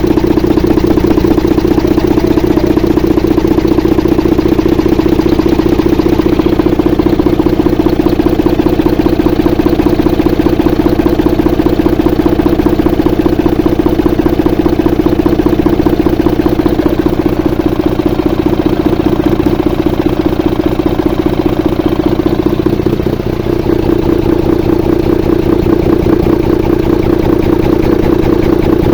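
Volvo diesel engine idling steadily with its manifold removed, a rapid even clatter from the valve train running over it: the strange valve noise whose cause is still to be found.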